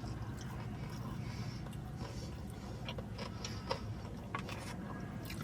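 A person chewing a mouthful of burger close to the microphone: irregular soft clicks and crunches, about half a dozen, over a steady low room hum.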